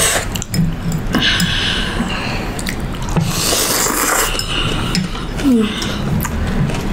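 Two people slurping pork thukpa noodle soup close to the microphone, with forks clicking and clinking against ceramic bowls.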